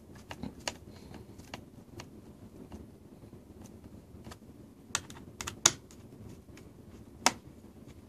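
Small Phillips screwdriver turning screws into a laptop's plastic bottom panel: faint scattered ticks and clicks of the tip in the screw heads, with three sharper clicks in the second half.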